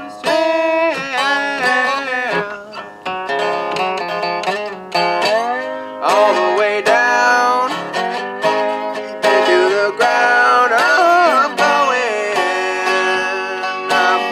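A resonator guitar picked in a blues style, a steady run of plucked notes, with a man's singing voice over it at times, its notes bending and wavering.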